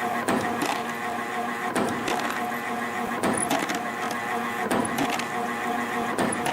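CNC compression spring coiling machine running, feeding and coiling 1.2 mm wire: a steady motor whine with a pair of sharp clicks about every one and a half seconds as each spring is finished and cut off.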